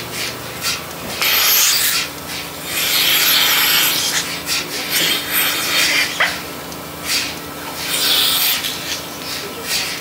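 Milking machine hissing in bursts as its teat cups are put on a cow's teats: air sucking in through the open cups, over a steady low hum from the vacuum.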